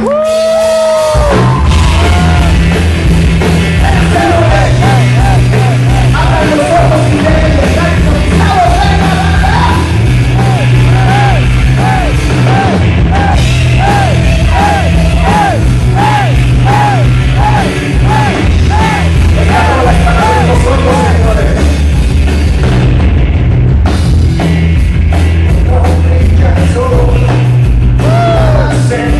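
Live rock band playing loud, with electric guitar and a man singing through the PA.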